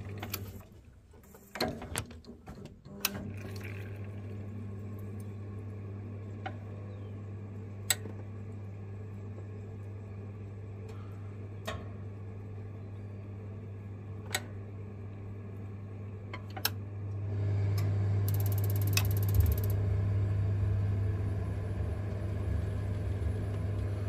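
Vaillant combi boiler's diverter valve actuator humming steadily as its motor drives the spindle, which has just been refitted into the valve, with a few light clicks. About three-quarters of the way through, the hum gets louder.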